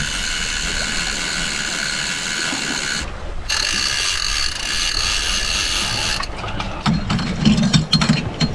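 Fishing reel's drag buzzing steadily as a hooked fish pulls line off the reel, with a short break about three seconds in. A little after six seconds it gives way to uneven clicking and ratcheting.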